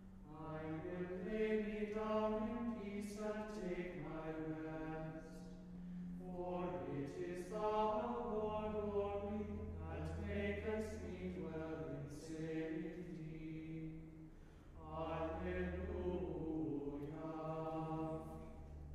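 Men's choir chanting together in three long phrases, with short breaks for breath about 6 and 14.5 seconds in.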